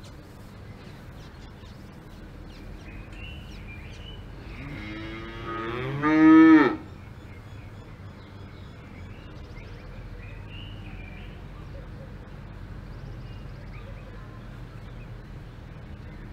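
A cow mooing once, about five seconds in: one long call that swells to its loudest near the end and then stops sharply. Behind it is a steady, faint pasture ambience with a few small high chirps.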